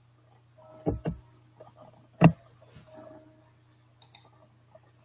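A few short clicks and knocks over a faint steady hum: two quick clicks about a second in and a louder knock a little past two seconds.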